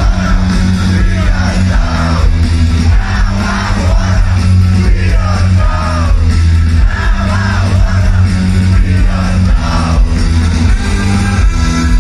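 Live rock band playing loud, with a steady repeating bass line, guitar and drums under a male lead singer's vocal lines.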